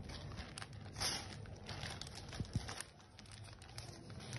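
Thin plastic polythene bag rustling and crinkling faintly in short irregular scrapes as a kitten paws and bites at it.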